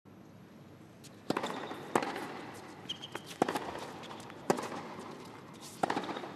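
Tennis rally: a serve and four more racket strikes on the ball, about a second or a second and a half apart, with brief squeaks of shoes on the court between shots.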